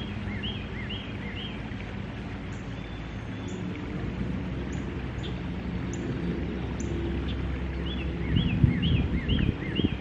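Outdoor ambience with a songbird singing a run of quick, repeated up-and-down chirps at the start and again near the end, over a steady low background noise, with a few low thumps near the end.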